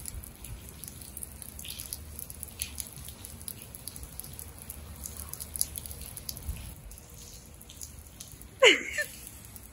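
Rain dripping and pattering lightly onto wet pavement, scattered small ticks over a soft hiss. Near the end comes one brief, loud sound that sweeps sharply up and down in pitch.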